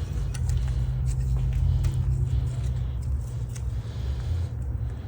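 A low, steady mechanical rumble, with a few faint clicks in the first second.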